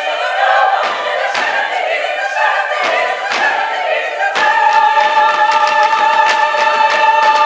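Women's choir singing a cappella, with several sharp thumps through the first half. About four seconds in, the voices settle onto a long held chord.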